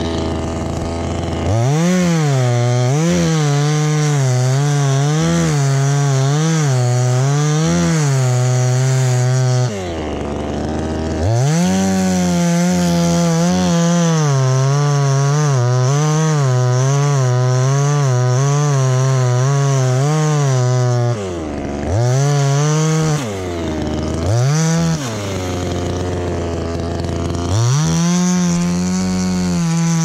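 A two-stroke chainsaw idles, then revs up and cuts into the base of a dead tree's trunk, its pitch wavering as the chain bites and the engine labours under load. It falls back to idle about ten seconds in, cuts again for about ten seconds, and gives two short bursts of throttle. It idles again, then revs back into the cut near the end.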